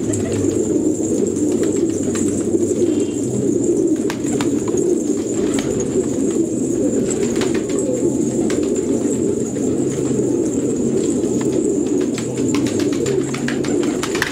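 Flock of fancy pigeons cooing, many low coos overlapping into a continuous sound, with scattered light clicks among them.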